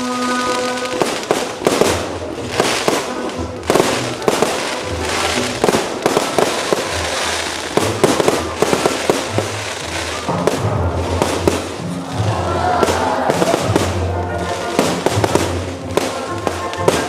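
Fireworks display: many bursts going off in quick, irregular succession, bangs mixed with crackling.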